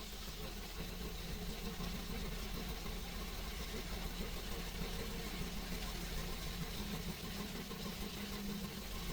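GM 6.0 L L96 gasoline V8 idling steadily, on a truck being checked for a misfire.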